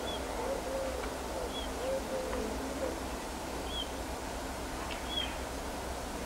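Background wild birds: a low phrase of several soft notes in the first three seconds, and a small bird's short, high call repeated every second and a half to two seconds, over a faint steady low rumble.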